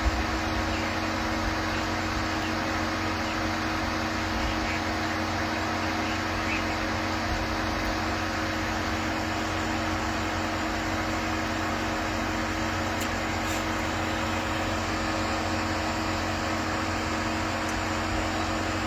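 Steady mechanical hum of a running vehicle and its ventilation fan, an even hiss with a couple of constant low tones underneath.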